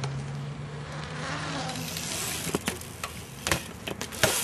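BMX bike riding a concrete bowl: a faint tyre hiss, then several sharp knocks of the bike against the concrete in the second half. A steady low hum underneath stops about halfway through.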